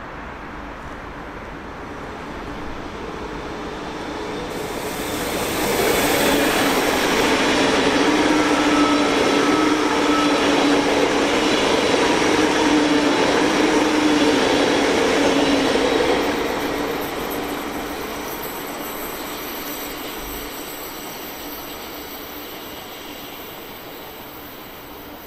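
ICE high-speed electric train passing close by: a rushing noise of wheels on rail with a steady hum that swells over the first few seconds, stays loud for about ten seconds, then slowly fades as the train moves away.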